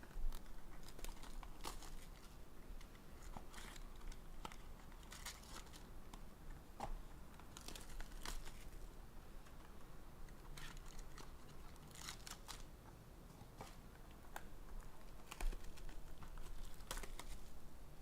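Foil trading-card pack wrappers crinkling and tearing as packs are handled and opened, in irregular short crackles.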